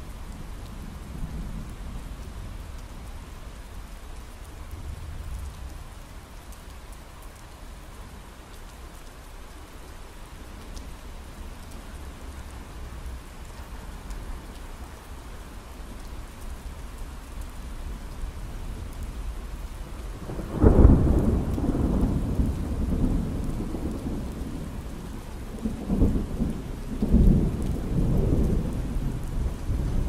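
Steady rain with distant low thunder rumbling. About two-thirds of the way in a loud thunderclap breaks and rumbles on for several seconds, and a second peal of thunder follows near the end.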